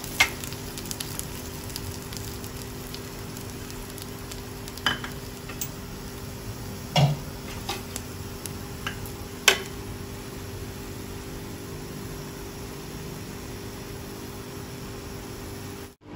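Finished lauki and suji halwa, with the ghee released from it, still sizzling in a non-stick pan over a low steady hum, with a steel spoon knocking against the pan a few times.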